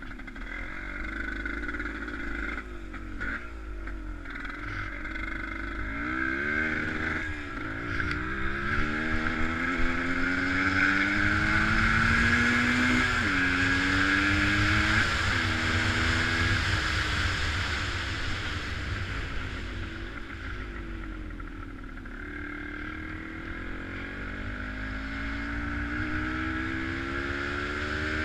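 Motor vehicle engine speeding up, its pitch rising with two brief drops like gear changes, then slowing and speeding up again near the end.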